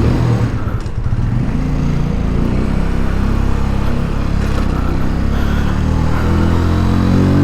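A Keeway Superlight 125 motorcycle engine pulling away and accelerating. Its pitch climbs, drops back at an upshift, then climbs again near the end.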